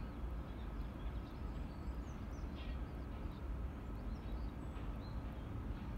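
Small birds chirping in short, quick notes over a steady low rumble.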